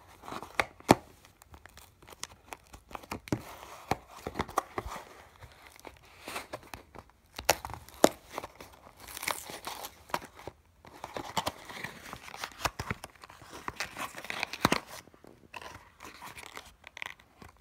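Thin cardboard toy box being torn and pried open by hand: irregular tearing and crackling with many sharp clicks, the loudest a snap about a second in.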